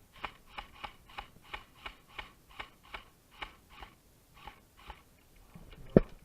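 Airsoft gun fired in rapid single shots: a run of about fifteen sharp clicks, roughly three a second, then a loud thump near the end.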